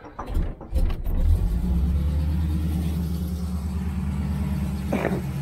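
The 1985 Chevrolet Camaro IROC-Z's V8 catches about a second in and settles into a steady idle. It is heard through its new headers and dual exhaust pipes joined by a Y-pipe.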